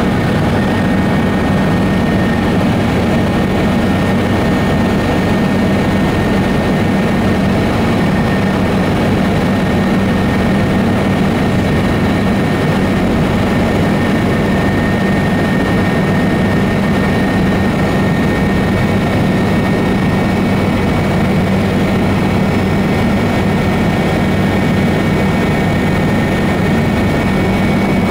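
Helicopter in flight, heard from inside the cabin: a loud, steady engine and rotor drone with a constant low hum and a thin high whine, unchanging throughout.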